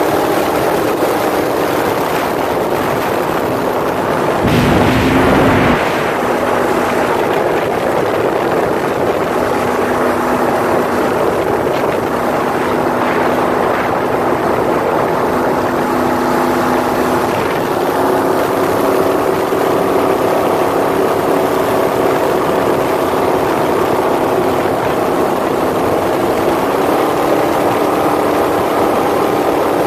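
Open-headered, supercharged V8 speedboat engine running hard at speed, with wind and water rush. There is a burst of wind noise about five seconds in. The engine pitch climbs a step about 18 seconds in and again near 27 seconds.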